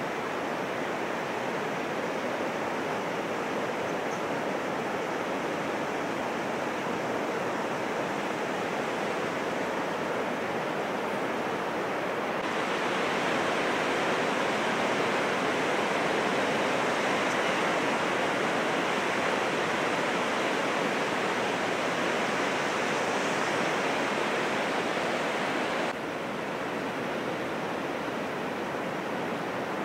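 Heavy ocean surf after a typhoon: a steady wash of breaking waves. It grows louder and brighter about twelve seconds in and drops back suddenly near the end.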